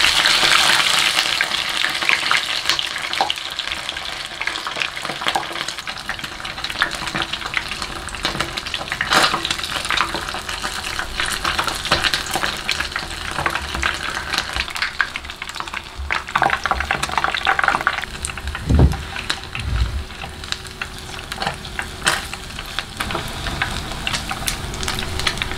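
Goldfish deep-frying in hot oil: a sizzling, crackling hiss that is loudest in the first second or so, then settles into a steady crackle with scattered pops. A few knocks from a utensil or the pan come about two-thirds of the way through.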